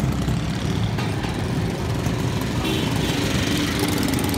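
Busy street traffic with the engines of auto-rickshaws, motorcycles and cars running. One auto-rickshaw's small engine comes close near the end.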